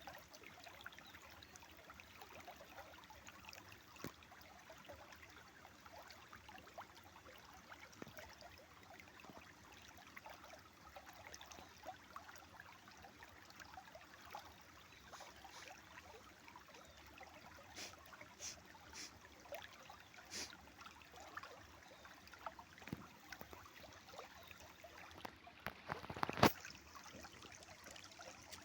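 Small river or stream flowing and trickling over stones, a steady wash with many small splashes and drips, and one louder sharp splash or knock near the end.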